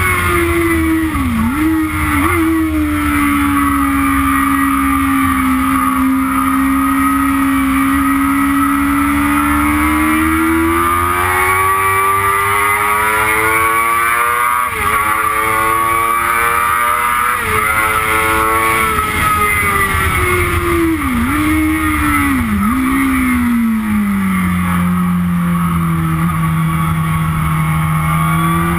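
Yamaha YZF-R6 sportbike's inline-four engine heard onboard, its revs rising and falling through the gears. The pitch dips sharply twice in the first few seconds, climbs in a long pull through the middle, falls, dips sharply twice more about two-thirds of the way through, then rises again near the end.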